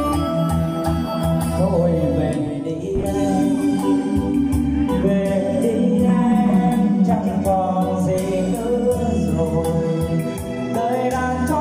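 A man singing through a handheld microphone over backing music.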